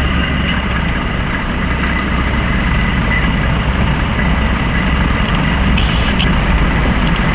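Heavy diesel engine of a Volvo truck running steadily under load while its front-mounted rotary snowblower throws snow, a continuous low rumble with a faint steady whine over it.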